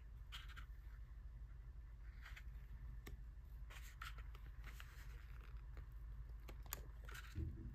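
Pages of a scrapbook paper pad being turned by hand: faint paper rustles and light flicks every second or so. A soft low thump near the end.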